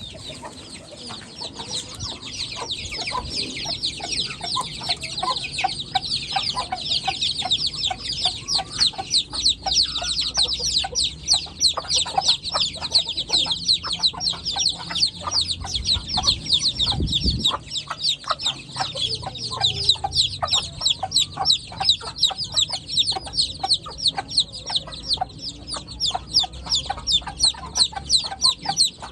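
A group of heera aseel chicks peeping without pause: a dense stream of short, high, downward-sliding peeps, many a second. A low bump sounds about two-thirds of the way through.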